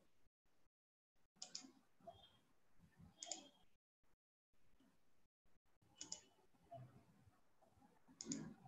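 Faint computer mouse clicks, four separate clicks a second or two apart, in near silence.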